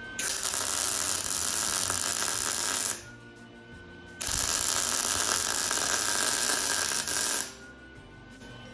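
Electric arc welder laying two welds of about three seconds each, a crackling hiss that starts and stops abruptly, on the steel seat frame.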